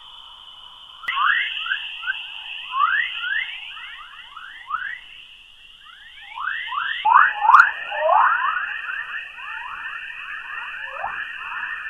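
Sonified space recording: a dense chatter of quick whistling chirps, many rising and some falling, over a steady high hissing tone, like electronic birdsong. The texture shifts abruptly about a second in and again about seven seconds in, growing louder and denser in the second half.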